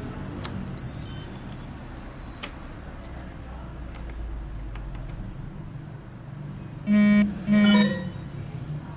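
A short high electronic beep, then about six seconds later two loud buzzing tones in quick succession, each under half a second, over a low hum and a few small clicks.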